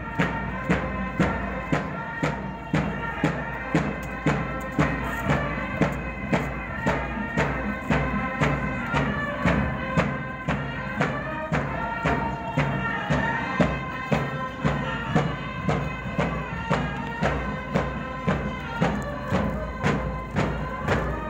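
Marching pipe band music: bagpipes playing a tune over a steady, regular drumbeat.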